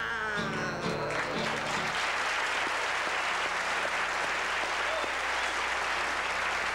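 Studio audience applauding steadily, with a few plucked acoustic guitar notes ringing out under it in the first two seconds.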